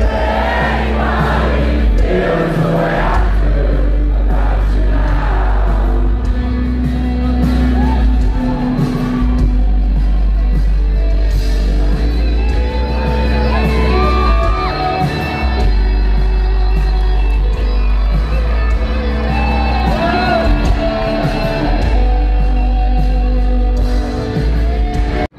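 Live rock band playing loudly through a concert PA, heard from within the crowd: electric guitar, deep sustained bass notes and singing.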